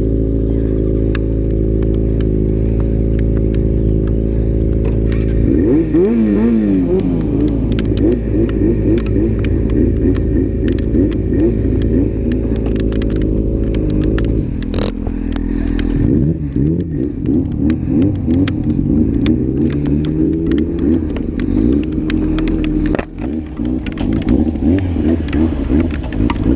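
Motorcycle engines: one idling steadily, then from about five seconds in several engines at different pitches revving up and down together.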